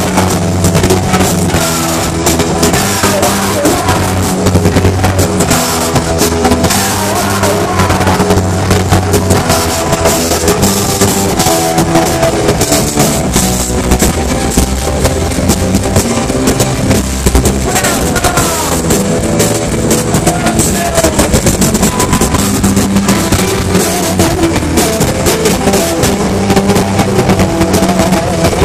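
Live rock band playing loud through a PA, with pounding drum kit and electric guitars and bass, recorded from within the crowd.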